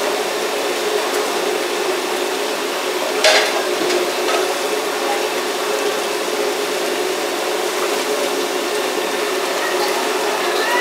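Whole tilapia deep-frying in a wok of hot oil, sizzling and bubbling steadily over a running gas wok burner. A utensil knocks sharply against the iron wok once, about three seconds in, with a few light clinks near the end.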